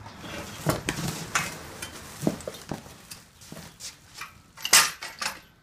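Bubble wrap and cardboard rustling and crinkling as a steel weight-bench frame is lifted out of its box, with irregular knocks and clatter from the metal frame; the loudest clatter comes near the end.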